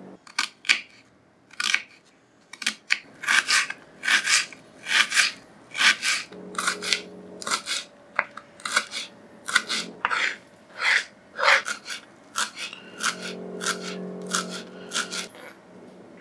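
Knife slicing green chilies on a wooden cutting board: a long run of crisp cuts, one or two a second at an uneven pace.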